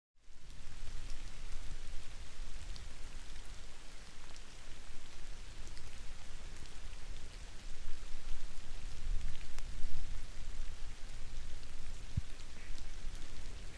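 Steady rain falling during a thunderstorm, with individual raindrops ticking close by.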